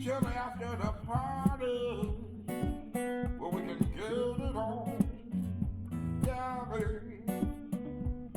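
Slow R&B song instrumental: guitar over bass and a steady drum beat, with a sliding, bending melody line.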